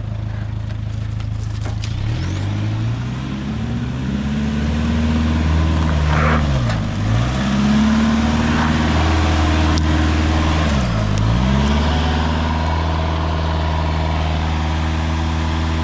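Four-wheel-drive vehicle's engine revving under load on a steep off-road climb, the revs rising, twice dropping sharply and picking up again, then holding steady.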